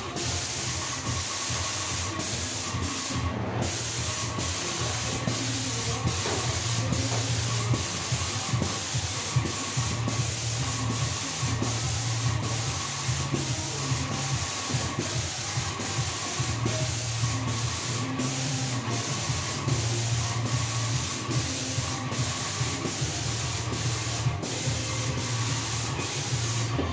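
Wagner 321 airless paint sprayer in use: a steady hiss of paint spraying from the gun, with the pump's low hum coming and going every second or two.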